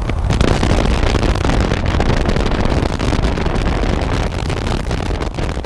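Steady wind rush on the microphone over a Yamaha FZ-07's parallel-twin engine while the motorcycle is ridden.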